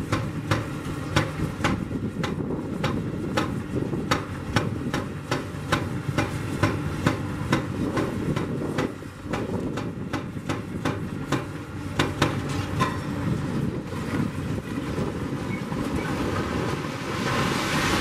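Demolition excavators working on a reinforced-concrete building frame: diesel engines rumbling under a steady run of sharp knocks, about two or three a second. Near the end the concrete frame collapses with a rushing crash of falling rubble.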